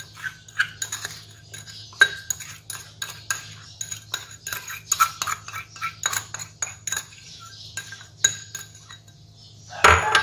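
Metal spoon clinking and scraping against a ceramic bowl and the rim of a steel pot, many quick taps with short ringing. Near the end a rooster starts crowing loudly.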